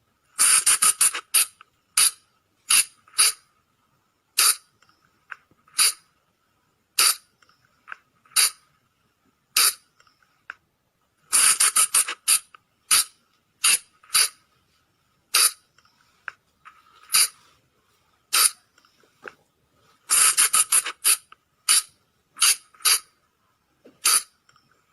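Sunda flying lemur (colugo) calls: short, sharp squeaks repeated at irregular spacing. Quick clusters of several calls come about a second in, around twelve seconds in and around twenty seconds in, with single calls roughly a second apart between them.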